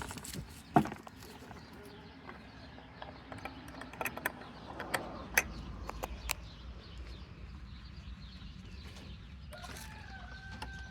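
Hens making low clucking sounds, with a few sharp clicks scattered through, and a short wavering hen call near the end.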